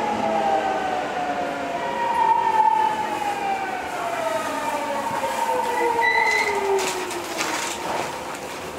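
Kobe Municipal Subway 1000 series car's GTO-VVVF inverter whining, several tones falling together in pitch as the train slows, under the rumble of the running train. A few sharp clicks come near the end.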